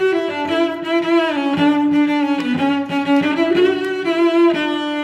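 Background music: a bowed string instrument playing a melody, its notes changing every half second or so.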